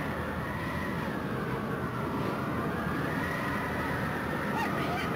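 Howling tornado wind: a steady roaring rush with a whistling tone that slowly dips and rises again.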